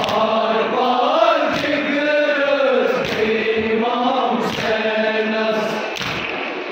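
A crowd of men chanting a Muharram lament (nauha) in unison, with hands striking chests in time: a thump about every second and a half.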